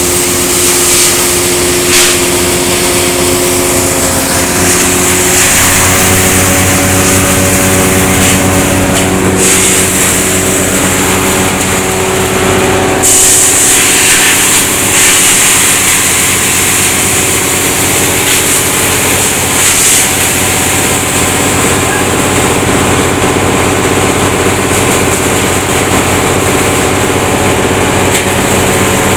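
Wood chipper for shredding veneer, its engine running steadily under a loud hiss that swells a few times.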